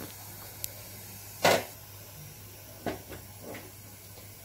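Upturned metal kadhai knocking against the gas stove as it is turned a little at a time over the flame to cook the roti stuck to it. One loud clunk comes about a second and a half in and a few lighter knocks follow, over a faint steady hum.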